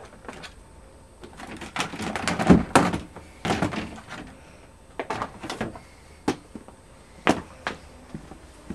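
Hard plastic equipment cases being pulled off wooden shelves and handled: an irregular run of knocks, scrapes and thuds, busiest in the first few seconds.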